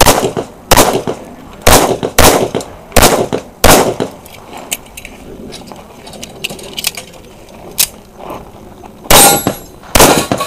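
Single-stack 1911-style pistol firing: six quick shots in the first four seconds, then about five seconds of small metallic clicks and rattles as the shooter handles the stalled pistol during an equipment failure, then two more shots near the end.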